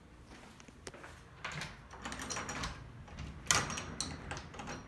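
Clicks and rattles of a front door's deadbolt and handle being worked as the door is unlocked and opened, with the sharpest click about three and a half seconds in.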